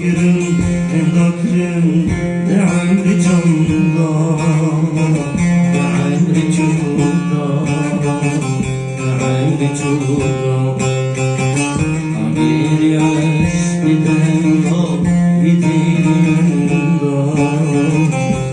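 Music: a male voice singing a folk song over a plucked string instrument, with a steady low drone under the melody.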